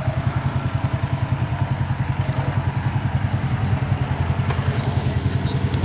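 Side-by-side UTV engine idling close by, a steady, evenly pulsing low rumble.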